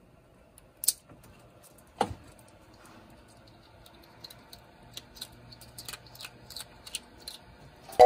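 Squirrel monkey biting and chewing a crunchy treat held in its hands: small sharp crunches and clicks, coming faster in the second half, with two louder snaps about one and two seconds in.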